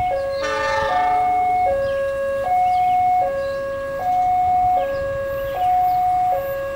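Railway level-crossing warning siren sounding a two-tone hi-lo wail, switching between a higher and a lower note about every three-quarters of a second. A short horn blast sounds about half a second in.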